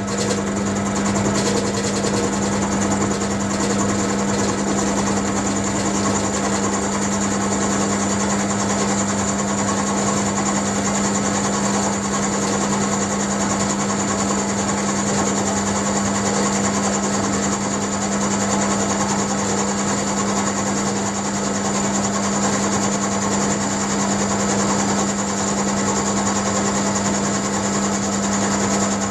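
Round-column mill-drill running steadily with a 12 mm end mill taking a 0.5 mm cut in steel plate: a constant motor hum under the even hiss of the cutter in the metal as the table is fed by hand.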